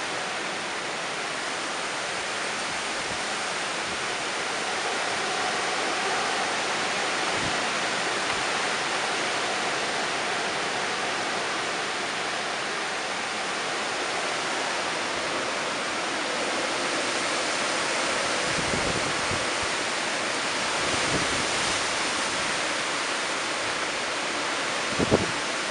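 Hurricane wind and heavy wind-driven rain: a steady, loud rushing hiss of rain and wind through the trees. Low gusty rumbles swell up in the second half, and a brief sharp thump comes near the end.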